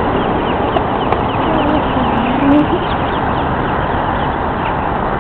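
Wind rumbling on the microphone in an open field, with small birds chirping over and over in the background. About two seconds in, a short low sound rises in pitch.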